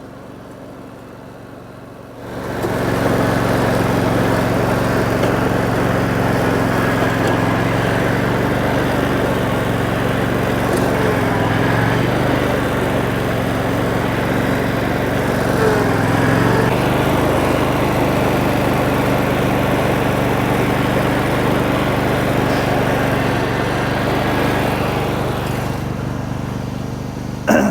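A small engine throttles up about two seconds in and runs steadily at working speed. Its pitch sags briefly twice under load, and there is a sharp knock near the end.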